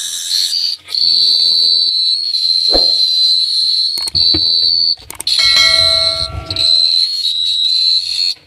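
Cricket chirping in a continuous high-pitched trill that breaks off abruptly a few times. There is a short thump about three seconds in, and a lower held tone with overtones for about a second and a half past the middle.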